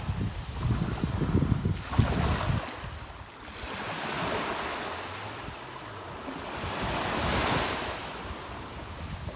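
Sea waves washing onto a beach: surf hiss that swells twice, loudest about three-quarters of the way through. Wind buffets the microphone with a low rumble for the first couple of seconds.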